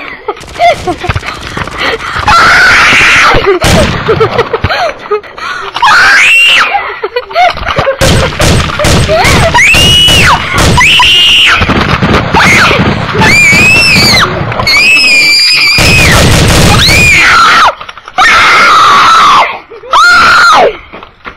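Children screaming and shrieking very loudly close to the microphone, a string of long high-pitched screams that rise and fall in pitch, with short breaks between them.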